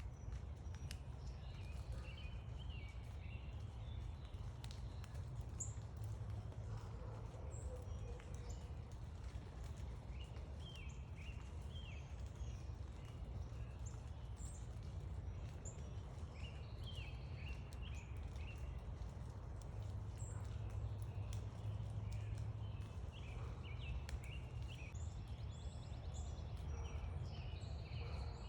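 Backyard songbirds chirping: scattered short, high calls throughout, over a steady low background rumble.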